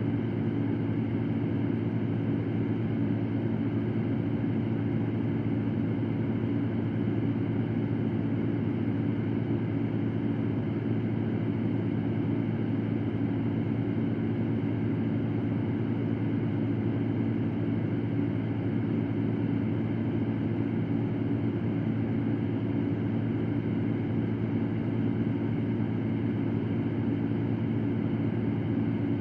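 Electric fan running steadily: an even rush of air with a low hum, unchanging in level and pitch.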